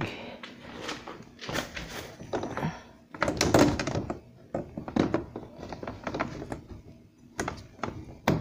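Thin plastic panels of a snap-together cube cabinet knocking and clattering as a floor panel is fitted into its plastic corner connectors. It comes as a string of irregular thunks, the loudest about three and a half seconds in.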